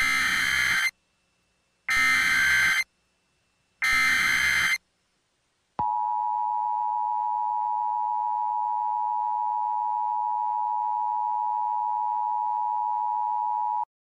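Emergency Alert System tones: three one-second bursts of SAME digital header data, then the two-tone attention signal, a steady dual-pitched electronic tone lasting about eight seconds that cuts off just before the announcement.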